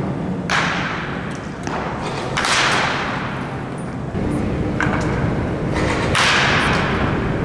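Wooden baseball bat striking balls in batting practice: a series of sharp cracks that ring on in a large indoor hall. The loudest come about half a second, two and a half and six seconds in, with weaker hits between.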